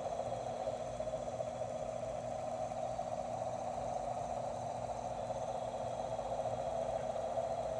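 A steady, unbroken drone with a low hum beneath it, from an unidentified source. Heard as like a helicopter idling behind buildings, or a jackhammer that never stops.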